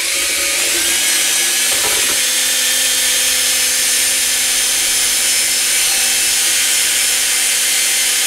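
Electric drill with a small bit boring out the stripped hex socket of an Allen screw, running steadily at an even pitch. The screw metal is soft and cuts easily.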